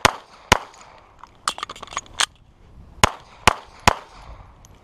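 Compact semi-automatic carry pistol firing a string of single shots: about six loud cracks at uneven spacing, with a pause of over a second midway and a few fainter cracks in that gap.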